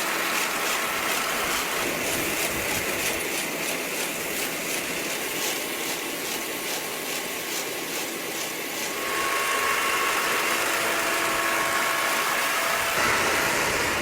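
Engine of a farm machine running steadily, with a regular clatter over the first several seconds. Its note drops and it gets a little louder about nine seconds in.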